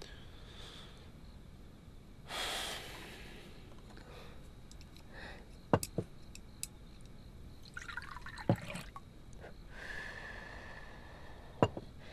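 Quiet tableware sounds: a few sharp clicks of chopsticks against a porcelain bowl, then tea poured from a porcelain teapot into a small cup, a steady trickle over a couple of seconds near the end. A short soft breath comes about two seconds in.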